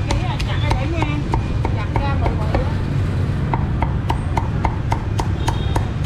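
Cleaver chopping roast pork on a thick wooden chopping block: quick, even strikes, about four a second.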